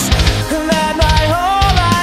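Loud heavy rock song: a full band with pounding drums and a held, wavering melodic line over them.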